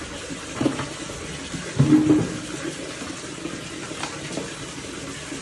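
Tap water running steadily during washing, with two louder bumps about a second and two seconds in.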